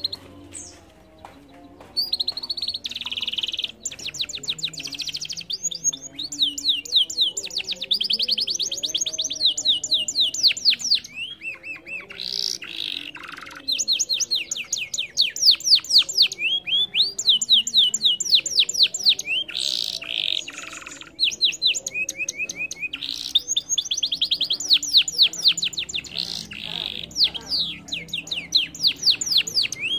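Domestic canary singing a long, continuous song of fast trills and rolls, rapidly repeated notes with short breaks between phrases, starting about two seconds in.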